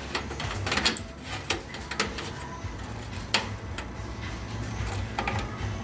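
Plastic clicks and rattles of drive data cables being handled and pushed into motherboard ports inside a PC case, a handful of separate sharp clicks over a low steady hum.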